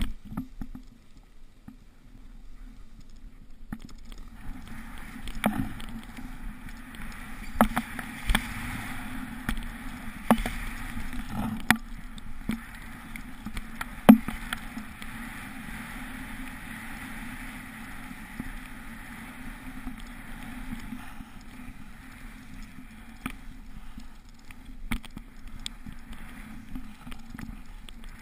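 Snowboard rushing through deep powder snow, heard through a pole-mounted GoPro Hero 2, with scattered knocks and bumps from the ride; the loudest knock comes about fourteen seconds in. The snow hiss is strongest through the middle and thins out over the last several seconds.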